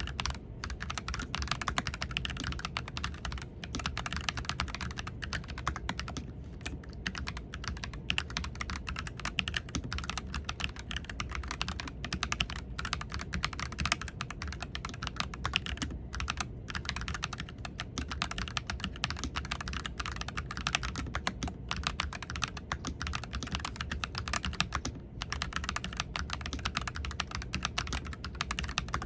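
Continuous fast typing on a NuPhy 96% pre-lubed mechanical keyboard, a dense stream of key clicks and clacks broken by a few brief pauses.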